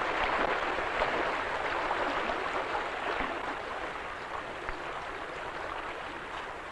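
Stream water running steadily, slowly fading.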